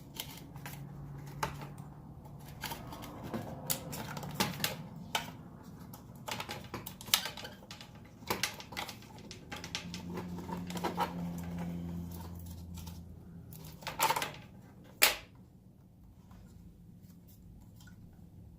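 Irregular clicks, taps and light rattling of small hard objects being handled, with a faint low hum beneath; the sharpest clicks come about 7, 14 and 15 seconds in.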